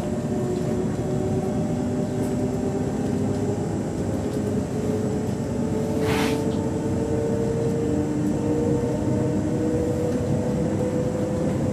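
Transilien line P train running, a steady rumble with motor tones slowly rising in pitch. A brief hiss about six seconds in.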